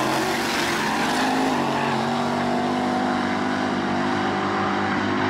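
Drag-race car engines at full throttle as the cars launch and pull away down the strip: a loud, steady, many-toned engine note whose pitch steps down once about a second and a half in.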